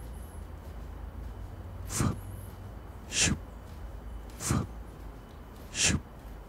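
Four short breathy whooshes, each falling quickly in pitch, evenly spaced about one and a third seconds apart, over a low steady hum.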